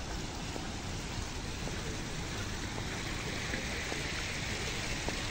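Rows of small fountain jets splashing into a reflecting pool: a steady, rain-like hiss of water that grows a little louder about three seconds in.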